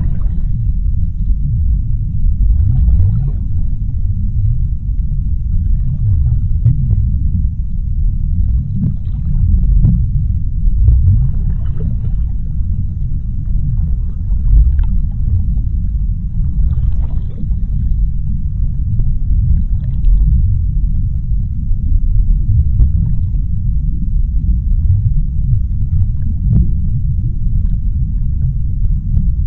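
Underwater ocean ambience: a steady deep rumble with faint scattered crackles above it.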